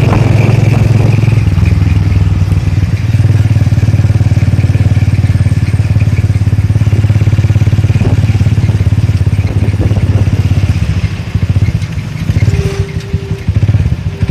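Motorcycle engine of a sidecar tricycle running steadily while under way, heard from the sidecar. About eleven seconds in, the engine note drops and turns uneven, with two short higher tones near the end.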